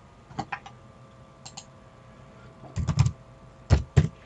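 Computer keyboard keystrokes and mouse clicks, with a few light scattered clicks and then louder key taps about three and four seconds in, over a faint steady hum.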